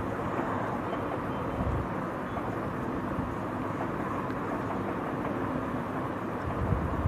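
Steady background rumble with hiss, heaviest in the low end, with no distinct events.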